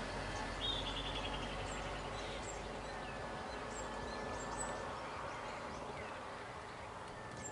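Open-air wildlife ambience: insects buzzing with scattered short bird chirps, and a brief rapid trilling call about half a second in.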